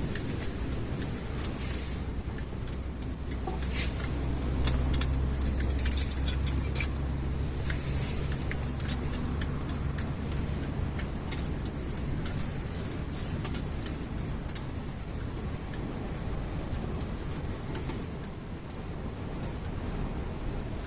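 A low engine hum, like a vehicle idling, that fades out about halfway through, with scattered light clicks and clinks throughout.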